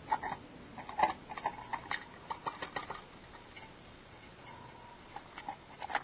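Irregular light clicks and taps of small metal parts and hand tools as a 1946 AC band tachometer is taken apart. They come thick in the first few seconds, thin out in the middle and pick up again near the end.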